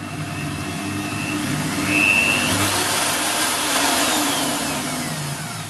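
Small variable-speed AC electric drill running with no load: the motor speeds up over the first two seconds, runs steadily, then slows and winds down over the last couple of seconds.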